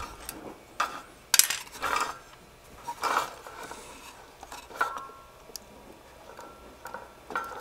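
Small metal tools clicking and clinking against metal hardware in irregular taps, with a brief metallic ring about five seconds in, as a fastener on an antenna analyzer is worked loose.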